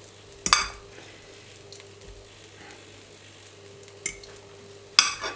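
Egg-soaked bread slices (pain perdu) frying and sizzling faintly in a pan, with a few sharp clicks, about half a second in and twice near the end.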